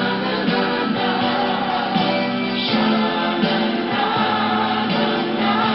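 Background pop song with group vocals singing a "xananana" refrain over a full band backing.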